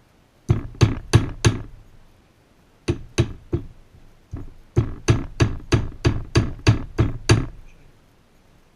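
Hammer blows on a metal strip, bending it into shape: four quick strikes, a pause, three more, then a light tap and a run of about ten blows at roughly three a second, each with a short metallic ring.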